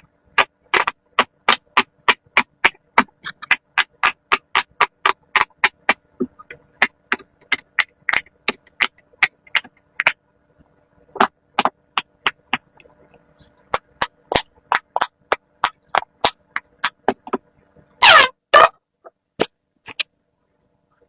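Silicone Pop-It fidget bubbles being pressed one after another, each giving a short pop, about four pops a second at first, then slower and uneven. Two louder, longer sounds come near the end.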